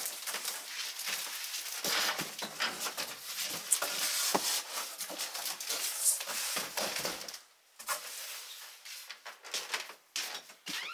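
Large cardboard shipping box being shoved and dragged across a wooden floor, with cardboard scraping and rustling. The noise stops about seven and a half seconds in, leaving a few light taps.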